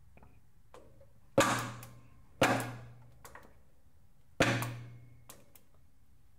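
Three sharp metal knocks, each ringing out for about half a second.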